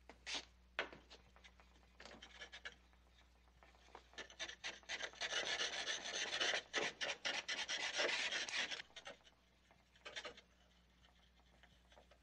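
Paint being scraped off the glass of an old mirror: short scratchy strokes, a few at first, then a quick dense run of them for several seconds in the middle, with a last few strokes before it stops.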